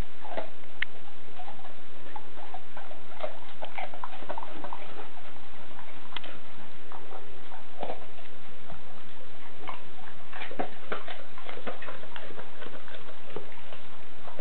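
A Rottweiler chewing raw carrot: irregular crisp crunches, coming thickest about ten seconds in.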